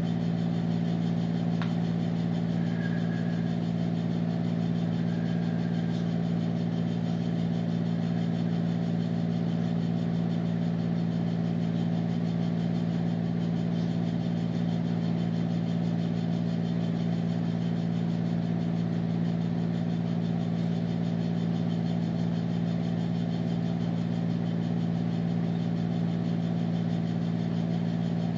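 A steady low machine hum: a motor or engine running at an unchanging speed, with one faint click about a second and a half in.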